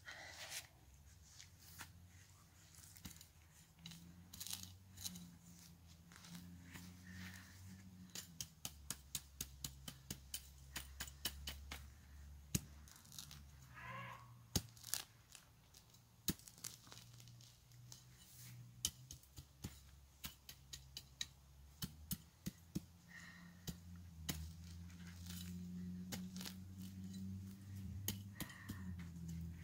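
Dead turf being cut and torn out by hand with a small kitchen paring knife: faint rips and snaps of grass roots and soil, coming in a quick run near the middle, over a low steady hum.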